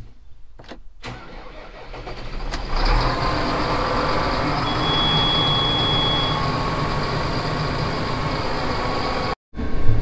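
RoGator self-propelled sprayer's diesel engine cranking over, catching about three seconds in, then running steadily. It cranks up fine now that a wireless module drawing the battery down has been disconnected. A high electronic beep sounds for about a second and a half in the middle.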